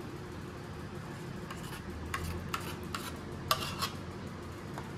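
Metal spoon scraping and knocking against a stainless steel pot as thick custard is scraped out, with a run of sharp clinks in the middle.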